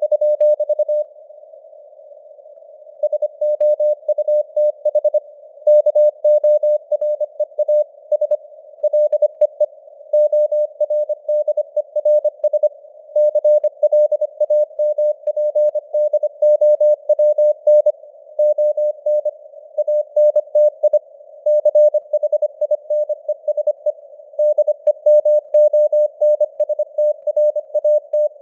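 Morse code (CW) sent at 25 words per minute as a single steady mid-pitched tone keyed on and off in dots and dashes, over faint simulated radio band noise. There is a pause of about two seconds near the start.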